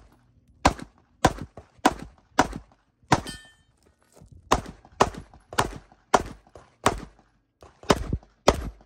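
Staccato P pistol firing a rapid string of about a dozen shots, mostly half a second or so apart. There is a pause of about a second and a half after the fifth shot, then seven more.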